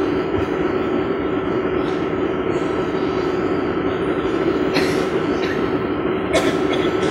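A steady, even drone with a constant hum, like a recorded train or machine sound effect. Two short hissing bursts come about five and six and a half seconds in.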